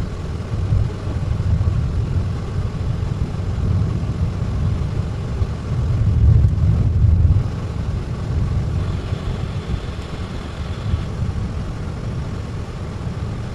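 Steady low rumble of a car driving on a snow-packed road, heard from inside the cabin: tyre and engine noise, swelling briefly about halfway through.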